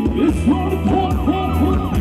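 Live band playing Thai ramwong dance music loudly through a PA, with a steady low beat and a melody of quick repeated sliding notes.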